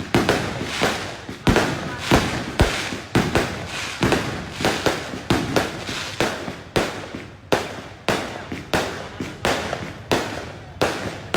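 New Year's fireworks going off in a steady barrage: sharp bangs about two a second, each fading quickly.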